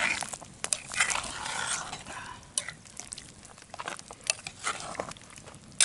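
A utensil stirring stew in a cast-iron camp oven: scattered clinks and scrapes against the pot, with the thick gravy moving around the pan.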